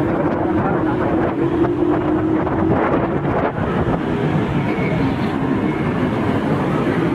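Small motorcycle engines running steadily as a group of bikes is ridden along a road, with the camera bike's own engine drone the loudest part.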